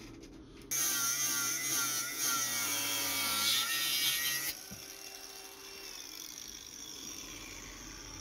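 Cordless drill-driver running for about four seconds, its motor pitch wavering as the trigger is worked, undoing the bolts of a roof tent's mounting bracket. It stops suddenly, then comes a single knock and a faint hum.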